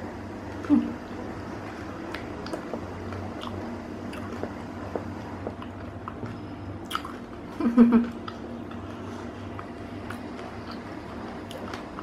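A person eating close to the microphone: chewing, soft squishes and small mouth clicks over apple pie with ice cream, against a low steady hum. Two short louder sounds stand out, about a second in and about eight seconds in.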